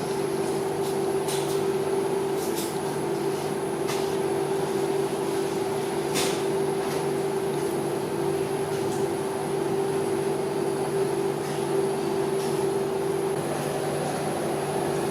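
Steady mechanical hum at an even pitch, with a handful of brief sharp ticks scattered through it, the clearest about six seconds in.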